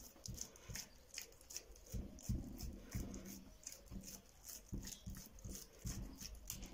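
A hand pressing and patting soft oiled dough flat on a wooden countertop: faint, irregular soft pats and small sticky clicks, a few each second.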